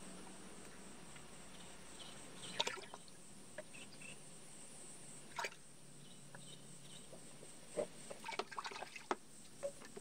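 Faint small-scale pouring and handling: liquid insecticide trickled from a plastic bottle into its screw cap, with light plastic clicks and rustles. A few brief sounds come about two and a half and five and a half seconds in, and a closer cluster near the end.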